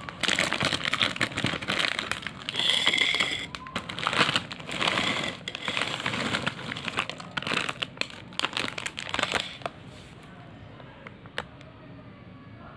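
Foil-lined snack bag of Cheetos Puffs crinkling and crackling as it is tipped and shaken to pour the puffs onto a paper plate. The crinkling stops about ten seconds in, and one sharp click follows a little later.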